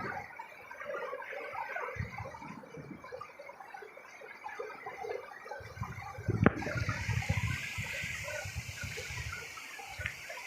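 Canal water flowing and splashing, with a sharp knock about six and a half seconds in, after which the water sounds brighter and hissier.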